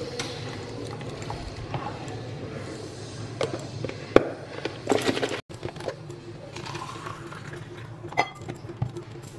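Plastic children's cup and snap-on lid with straw being handled on a hard countertop: a few scattered sharp clicks and taps as the lid is pressed on and the cup set down, the loudest about four seconds in.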